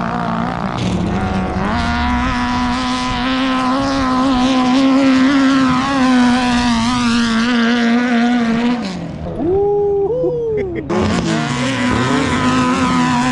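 Long-tail boat engine running at steady high revs. About two-thirds of the way through, the revs drop and waver for a couple of seconds, then climb back to a steady pitch.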